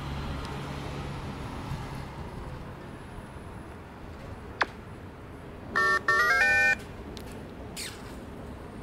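Smartphone game app plays a short electronic jingle, a quick run of beeps stepping upward in pitch, lasting about a second. It is the Flash Invaders app's reward sound for a successfully flashed Space Invader mosaic. A single sharp click comes about a second before it.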